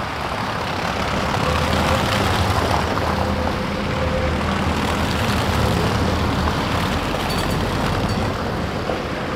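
Tatra T3-type tram rolling past through the junction: a steady low rumble of its motors and wheels on the rails, swelling about a second in and easing off near the end.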